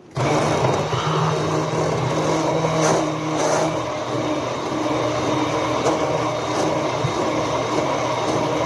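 Electric hand blender motor running steadily at speed, a loud hum with a hiss over it, switched on abruptly at the start.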